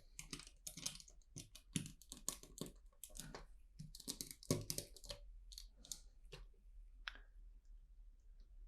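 Small plastic LEGO pieces clicking as they are handled and pressed together, a quick run of light clicks that thins out after about six seconds.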